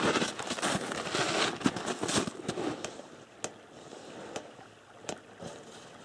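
Close crunching of snow and rustling movement right at the microphone, full of small crackles and clicks. About halfway through it dies down to a few scattered clicks.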